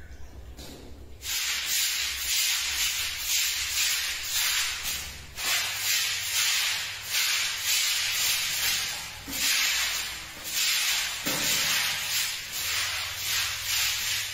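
Short stiff-bristled broom scrubbing a tiled floor, a harsh scratching in repeated back-and-forth strokes that starts about a second in.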